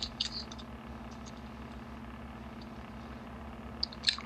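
Foil pouch crinkling as it is handled and bitten at to tear it open: short crackles at the start, a few more about a second in, and a sharper cluster near the end, over a steady low hum.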